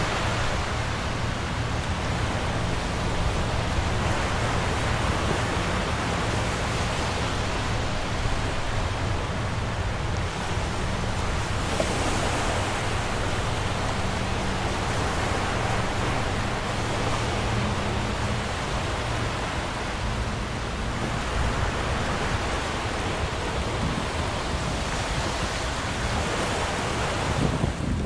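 Steady rushing wind on the microphone with river water, swelling and easing every few seconds. Beneath it is a low steady engine drone from the passing container ship and its tug.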